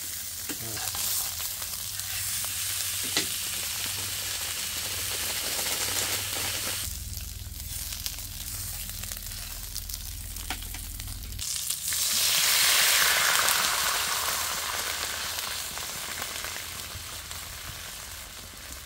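A chunk of pork searing in a hot wok, sizzling steadily, with a few sharp clicks of metal tongs. The sizzle swells loudest about twelve seconds in and then dies down.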